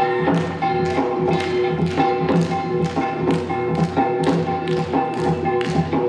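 Korean traditional dance music: held melodic tones from the ensemble over sharp, ringing small-gong (kkwaenggwari) strikes in a steady rhythm of about three a second.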